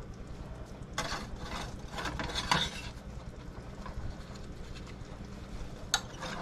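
Silicone spatula scraping and scooping chicken and vegetables in a frying pan, with a few short scrapes and knocks about a second in, at around two seconds, and again near the end.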